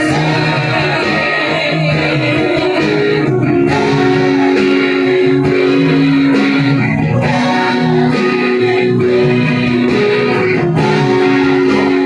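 Electric guitar playing improvised lines, with held and bent notes, along with a recorded song that plays underneath.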